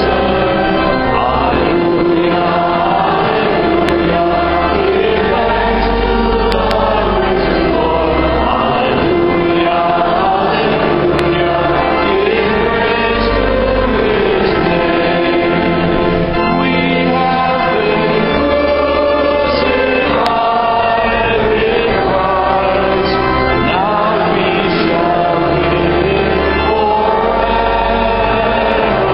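A choir singing church music with sustained low notes that shift every couple of seconds, likely pipe organ, underneath. The voices glide between held notes and echo through the large cathedral.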